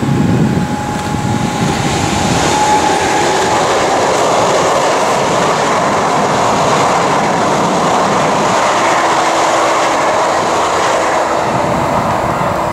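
Electric passenger train passing close by at speed: a loud, steady rush of wheels on rail, with clickety-clack from the track. The sound cuts off suddenly at the end.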